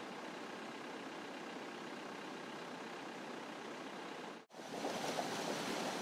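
Steady rush of a river running over rapids. About four and a half seconds in it cuts to slightly louder water pouring down a concrete channel.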